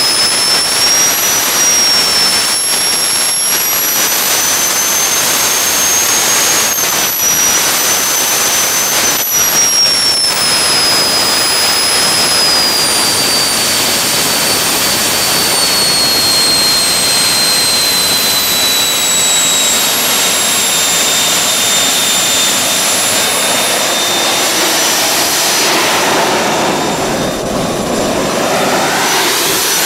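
Home-built jet engine running flat out on a test rig: a steady loud roar with a high compressor whine that climbs slightly over the first several seconds, then slowly sinks in pitch. Near the end the whine fades and the roar takes on a different tone.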